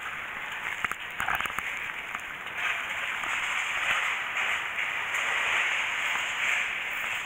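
Plastic film and a woven plastic sack rustling and crinkling. There are a few sharp crackles about a second in, then a steadier, louder rustle from about two and a half seconds in.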